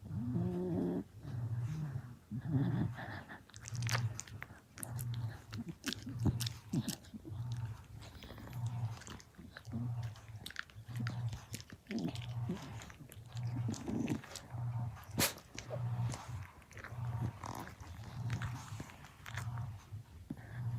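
Shiba Inu chewing and crunching a dog treat, with many quick crunchy clicks, over a low pulse that repeats about every second and a quarter.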